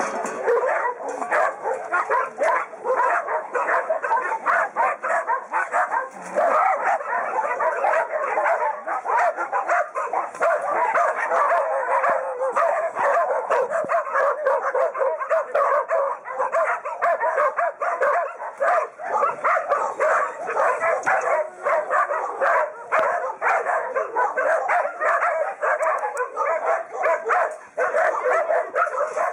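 Many dogs barking at once: a dense, unbroken chorus of overlapping barks and yelps from a pack of kennelled dogs.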